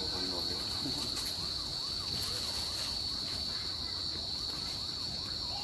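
Steady, high-pitched drone of insects in the woodland, with a faint wavering call repeating beneath it. A woman's voice is heard briefly at the start.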